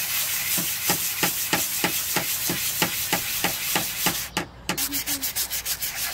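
Steel knife blade rubbed back and forth by hand on a sheet of abrasive paper, a regular scrape at about three strokes a second. A short pause about four and a half seconds in, then the strokes come a little quicker.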